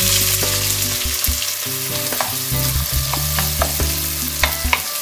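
Diced onion sizzling in hot olive oil in a cast-iron Dutch pot while a wooden spoon stirs it, with a few light knocks of the spoon near the end.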